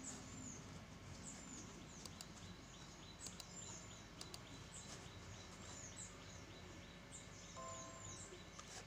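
Faint background of small birds chirping, a string of short, high, falling chirps, with a few faint clicks. Near the end comes a short Windows 10 device-connected chime as a USB optical mouse is plugged in.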